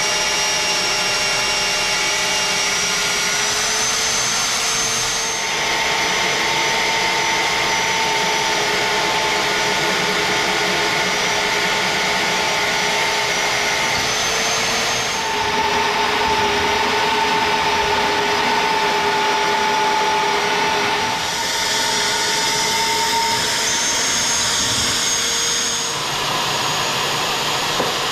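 DeWalt magnetic drill press running with a 1/2-inch bit, drilling a series of holes through steel tubing. The motor gives a steady whine whose pitch shifts a little every several seconds as the load changes.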